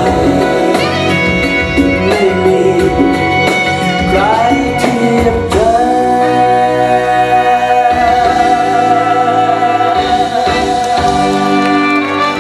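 Male pop singer performing live with a band: a sung melody with sliding notes, then, about halfway through, a long held note with vibrato lasting about five seconds over sustained chords.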